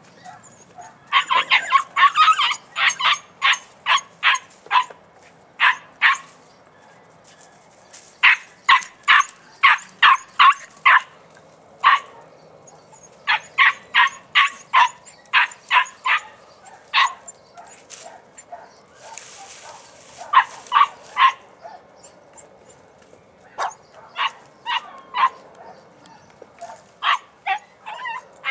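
A young podenco puppy yelping in rapid runs of short, high-pitched yips, several bouts with short pauses between, while hunting for a rabbit hidden in the brush.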